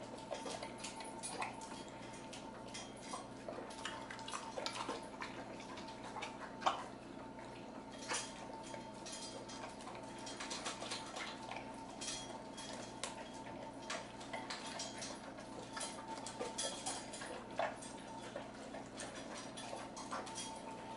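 An XL American Bully eating a raw meal from a stainless steel bowl in a metal stand: irregular clicks and clinks of metal against the bowl as he works at the food, one sharper clink about six and a half seconds in.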